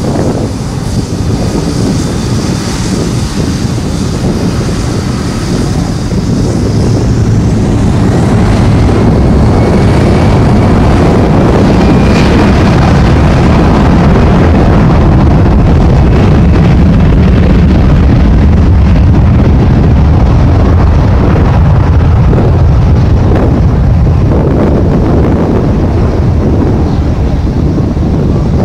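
Loud jet airliner engine noise that swells over several seconds to a steady peak, then eases slightly near the end, with a high whine gliding down in pitch at the start and heavy wind rumble on the microphone.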